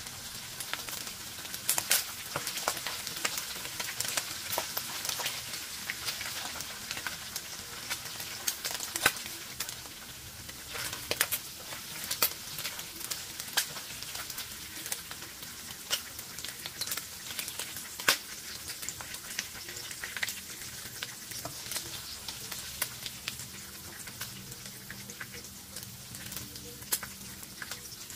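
Gizzards sizzling as they fry in hot oil in a nonstick pan: a steady hiss with frequent sharp spattering pops. A nylon slotted spoon stirs and scoops through them.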